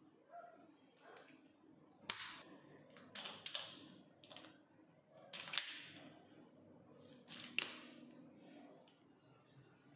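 Hard objects being handled and set down: about six sharp clacks and knocks a second or two apart, some in quick pairs.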